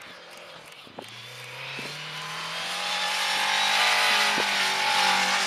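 Rally car engine running hard as the car slides through snow and passes close by, its note rising slightly and growing louder towards the end, with a hiss of tyres and thrown snow.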